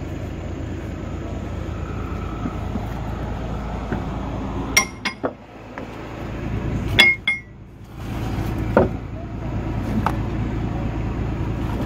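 Sharp metallic clinks of ratchet-strap hardware knocking against the steam engine's steel frame as the strap is thrown over for tie-down: a pair about halfway through, another pair a couple of seconds later, then single clinks near the end. A steady low rumble runs underneath.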